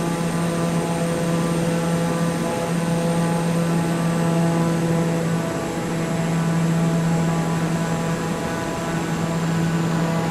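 A machine's steady drone: a constant low hum with a faint high whine that drops slightly in pitch about halfway through.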